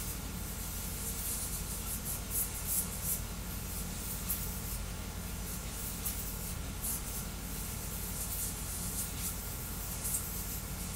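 3D printer running a fast print: a steady low hum with a faint steady tone, broken again and again by quick scratchy high-pitched bursts as the toolhead moves.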